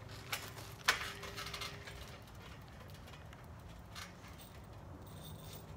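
Trampoline springs and frame clicking as someone shifts on the mat: a few scattered clicks, with one sharper snap about a second in, over a faint low hum.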